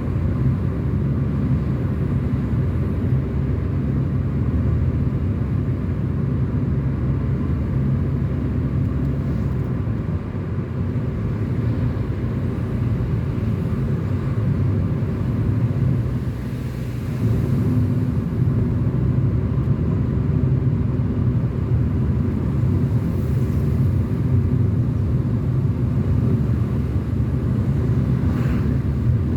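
Car driving along a road, heard from inside: a steady low engine and road rumble. It dips briefly past the middle, then runs on a little louder.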